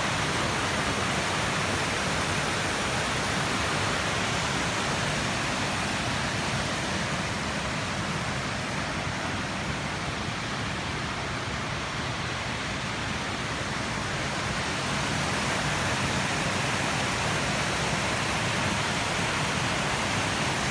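Waterfall: a steady rush of falling water, dipping slightly in level about halfway through.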